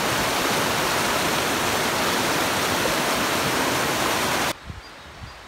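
Fast creek water rushing and splashing over rocks close to the microphone, a steady loud rush that cuts off suddenly about four and a half seconds in.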